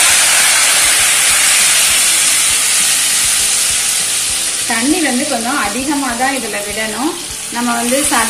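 Dried turkey berries (sundakkai vathal) sizzling as they fry in hot oil in a metal kadai, a steady hiss with some stirring. From about five seconds in, a tune with a wavering pitch plays over the sizzle.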